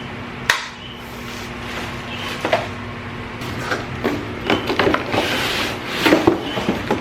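Handling noises from unboxing a Simplus cordless vacuum cleaner's parts and packaging: a sharp click about half a second in, then rubbing and rustling with several knocks, busiest near the end.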